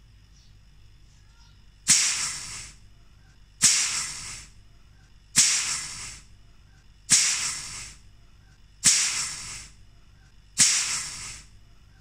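Six short, loud bursts of hiss at an even pace, about one every second and three-quarters, each starting suddenly and fading within about a second.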